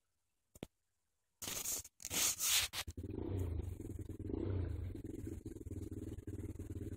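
Rustling and scraping against the microphone about a second and a half in, then a cat's low, rapidly pulsing rumble that carries on steadily.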